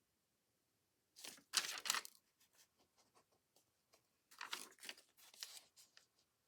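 Paper crafting materials being handled: two bursts of crinkly rustling, one about a second in and one past the middle, with small ticks of paper between them.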